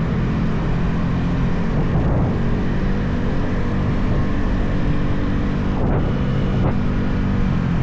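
Yamaha XSR 155 motorcycle with its stock single-cylinder engine and exhaust, running at a steady cruising speed with only slight changes in revs.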